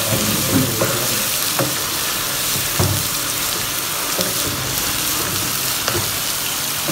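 Sliced onions sizzling in hot oil in a nonstick pot over high flame, stirred with a wooden spatula that scrapes and now and then knocks against the pan. The onions are freshly added and still raw, at the start of being sautéed soft.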